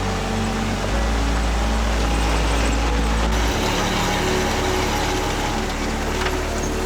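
Off-road Jeep engine running steadily while driving, with tyre and wind noise; its low hum swells for a couple of seconds about a second in.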